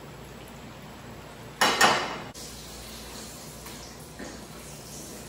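Battered fish pieces frying in hot oil in a wok, a faint steady sizzle, with a metal ladle scraping and clanking against the wok in one loud burst of about half a second near the middle.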